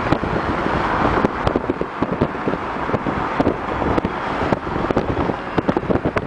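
Car driving at speed: steady road and engine noise with wind gusting and buffeting against the microphone.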